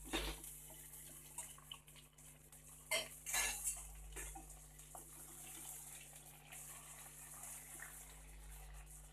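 Raw chicken pieces tipped into a nonstick wok of hot oil and fried onions, then stirred with a wooden spatula: soft scraping and a few knocks against the pan, the clearest about three seconds in, over a faint frying sizzle.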